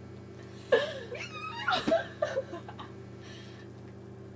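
A girl's playful, wordless whimpering and squealing: a few short, high vocal cries bunched between about one and two and a half seconds in.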